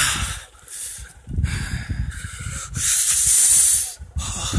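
Air rushing over the phone's microphone in uneven bursts of hiss. One comes at the start, a longer one about a second in carries a low buffeting rumble, and the loudest, a bright hiss, comes about three seconds in and lasts about a second.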